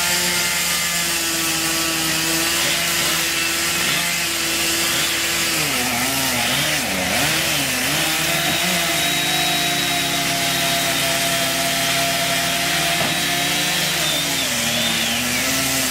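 Two-stroke chainsaw running at high speed through a cut, its engine pitch dipping and wavering about five seconds in and again near the end as the chain is loaded in the wood.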